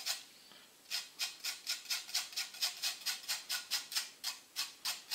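Lemon peel being grated on a fine metal hand grater: a steady run of short scraping strokes, about four a second, starting about a second in after a brief pause.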